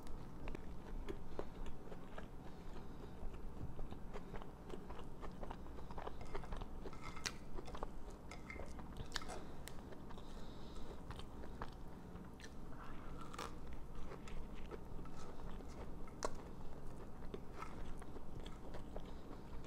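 A person chewing and biting bread close to a clip-on microphone, with many small scattered mouth clicks and smacks.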